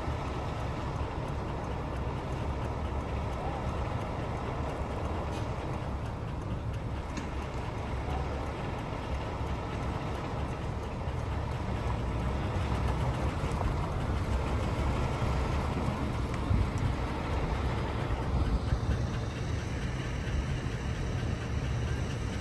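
Car engine and road noise heard from inside the cabin: a steady low rumble that gets a little louder about halfway through as the car moves off.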